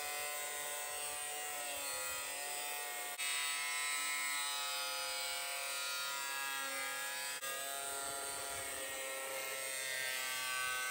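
Corded Makita angle grinder with a thin cut-off disc cutting through the tailgate's sheet steel to remove rusted metal. It gives a steady high whine whose pitch sags now and then as the disc bites into the metal.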